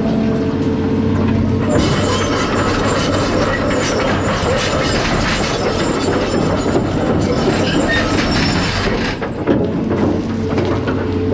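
John Deere 250 excavator at work: its diesel engine runs steadily under loud, busy metal clanking and squealing. After about nine seconds the clatter eases and the engine's steady hum comes forward.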